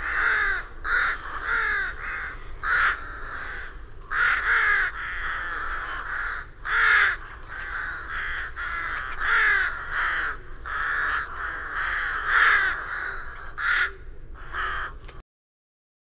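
Several rooks cawing at once: overlapping, hoarse caws repeated every second or so, some louder and nearer than others. The calls cut off suddenly shortly before the end.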